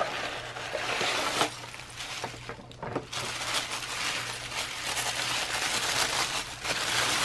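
Tissue paper rustling and crinkling as it is unwrapped by hand, after a package scrapes out of a corrugated cardboard sleeve at the start.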